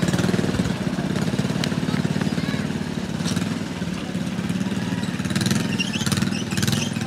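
Small engine of a motorized rail skate running steadily, with a fast, even firing beat.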